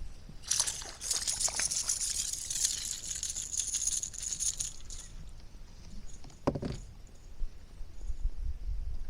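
Water sloshing and trickling at a kayak for about four seconds, then a single short sharp sound about six and a half seconds in, with wind rumbling on the microphone near the end.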